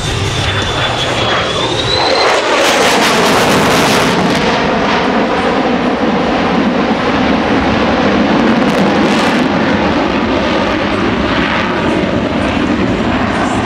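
Jet noise from the F-35A Lightning II's single Pratt & Whitney F135 afterburning turbofan, lit in afterburner as the jet banks and climbs overhead. The sound swells about two seconds in with a sweep falling in pitch as the jet passes, then holds as a steady, loud roar.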